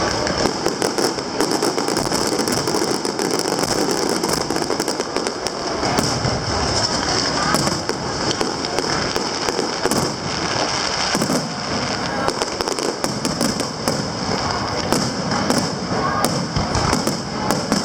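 Aerial fireworks show: shells bursting in rapid succession, a dense, continuous run of bangs and crackles.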